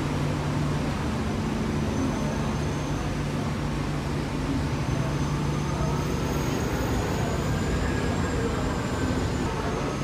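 Steady low drone of ferry engines and machinery, an unchanging hum under a constant wash of noise.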